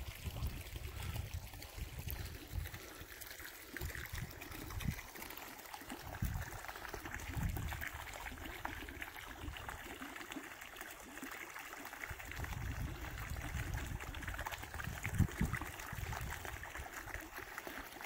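Shallow stream of water trickling and running over rocks and through grass, a steady watery rush, with an irregular low rumble underneath and one brief low thump about three-quarters of the way through.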